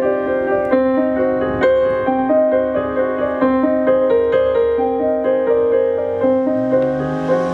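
Piano playing an instrumental passage between sung lines: held chords under a moving melody, with new notes struck several times a second.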